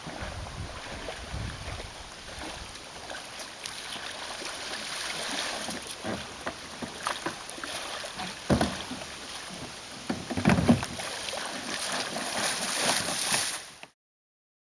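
Sea kayak coming into a shallow shore: paddle strokes and water splashing, then sloshing and splashes as the paddler steps out into the water, with two louder splashes past the middle. The sound cuts off shortly before the end.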